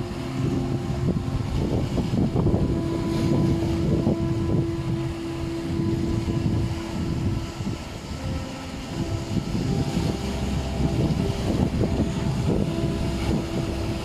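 Sea waves washing and splashing over shoreline rocks in irregular surges, with a soft meditation-music drone of long held tones laid over them. The waves ease off a little about eight seconds in, then build again.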